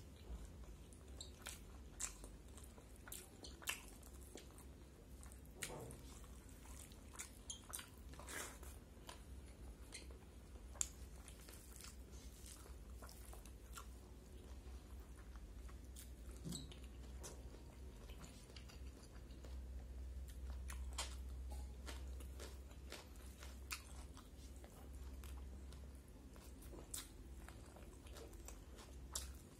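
Close-miked chewing and mouth sounds of a person eating rice with bamboo shoots and greens by hand: faint, scattered smacks and small crunches. A steady low hum runs underneath.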